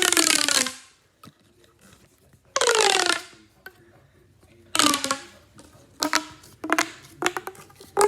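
Plastic pop tube (ribbed fidget tube) being stretched and squeezed: three long ribbed, pitched pulls with a falling pitch, roughly every two and a half seconds, then several shorter quick pulls and clicks near the end.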